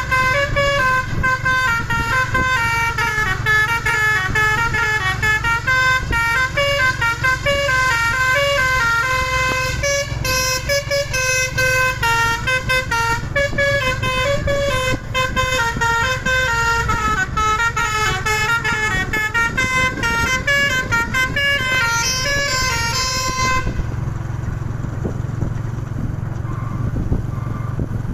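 Basuri telolet musical horn on a container truck playing a quick tune of changing notes over the truck's running engine. The horn stops about 24 seconds in, leaving the low engine rumble.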